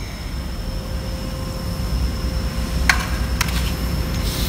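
Two sharp metal clicks about half a second apart, a little under three seconds in, from the small puller and the delivery valve seat of an inline injection pump being handled. Under them runs a steady low background hum.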